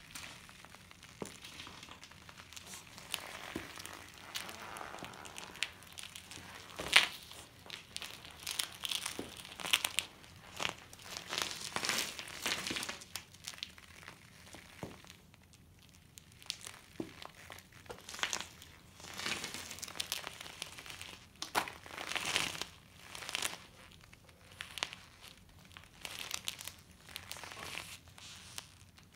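Nearly flat knobby mountain-bike tyre squashing and scuffing on a gritty concrete floor under load. It makes irregular crinkling, crunching noises, with one sharp click about seven seconds in and a brief lull about halfway through.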